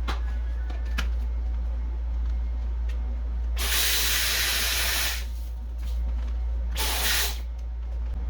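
Two loud bursts of hissing, the first about a second and a half long, the second about half a second, over a steady low hum, with two faint clicks near the start.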